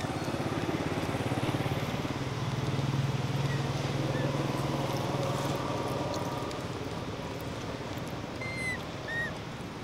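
A low, steady engine hum that swells and then fades over several seconds, like a vehicle passing by. Two short high chirps come near the end.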